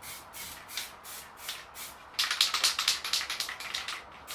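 Aerosol can of clear coat spraying in one long hissing burst from about two to three seconds in, over electronic music with a steady beat.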